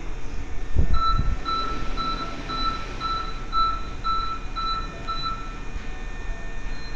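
Platform screen door warning beeper sounding about ten short, evenly spaced beeps, about two a second, while the door slides shut, with a low thump about a second in.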